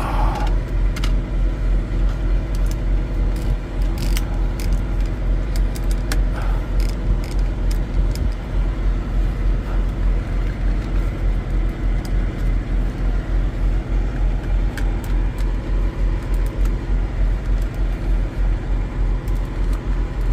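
A steady low engine rumble, pulsing about three times a second like an idling motor, under scattered light clicks and taps of plastic trim clips being pried loose with a screwdriver.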